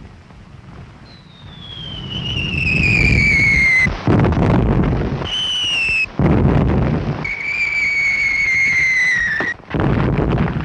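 Artillery shells whistling in, each whistle falling in pitch and cut off by a shell burst: three in a row, the bursts about four, six and nine and a half seconds in, after a low rumble of gunfire.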